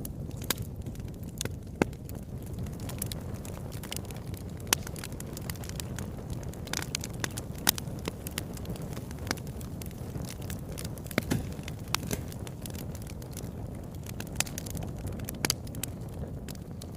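Wood fire burning in a fireplace: irregular sharp crackles and pops, a few louder snaps, over a steady low rush of the flames.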